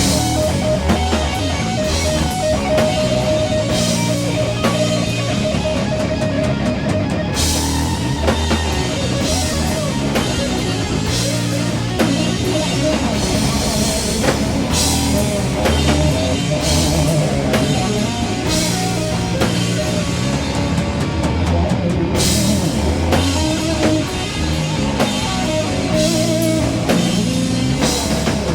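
Doom metal band playing an instrumental passage: heavy distorted electric guitars and bass over a drum kit with steady cymbal crashes.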